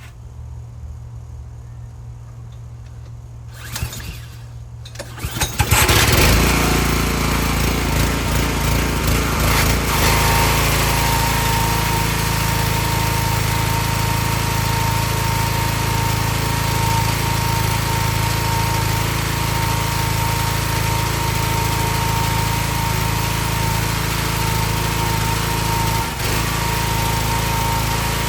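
Excell XR2500 pressure washer's 5 hp Honda engine being pull-started: it catches about six seconds in and then runs steadily, with a brief dip near the end. The engine has a bad spark plug, carboned up and gapped too small, that makes it run rough and cut out after a short run.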